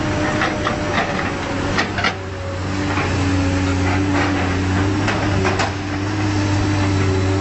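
Heavy machinery engines running steadily while a grapple excavator loads logs onto a logging truck, with irregular sharp knocks and clanks from the logs and grapple. The engine note dips slightly about three seconds in.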